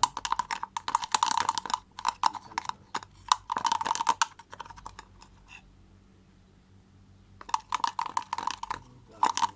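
Slime mixture of glue and contact-solution activator being stirred in a container: a rapid run of clicks and sticky scraping from the utensil, pausing for about two seconds in the middle before starting again.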